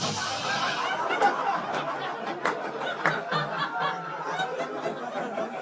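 Stand-up comedy audience laughing after a punchline, with scattered claps.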